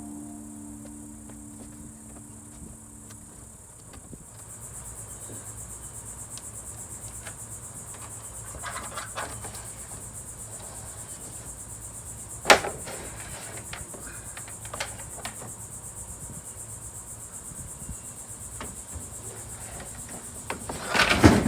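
Insects chirring in a steady high-pitched buzz, with a few scattered knocks and a louder clatter near the end.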